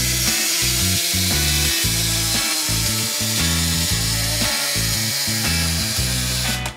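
Plastic gear mechanism of a toy car wash play set whirring steadily and cutting off abruptly near the end, over background music with a stepping bass line.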